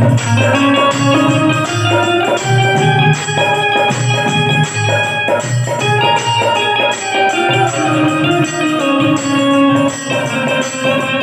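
Instrumental stage music led by an Indian banjo (bulbul tarang) playing a sustained, organ-like melody over a steady percussion beat of about two hits a second.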